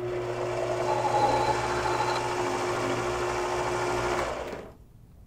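Mini lathe motor and gear train running with the chuck spinning an aluminium tube. It starts up, runs steadily with a whine, and is switched off about four and a half seconds in.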